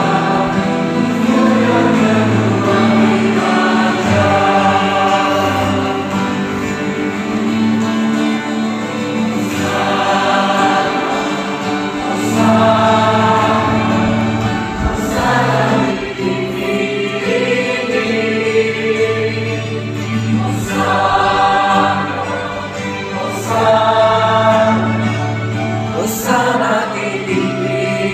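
A choir singing a hymn over held low accompanying notes, in phrases of a few seconds with short breaks between.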